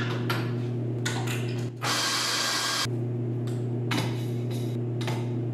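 Espresso machine being worked: a steady low hum, light knocks and rubbing as the portafilter is wiped with a cloth, and a short hiss from the machine, just under a second long, about two seconds in.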